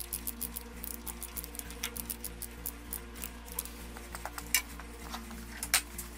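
Ratchet wrench clicking fast and evenly, about seven clicks a second, while the ignition coil is bolted on. The clicking thins out into scattered metal clicks, with two sharper clinks near the end.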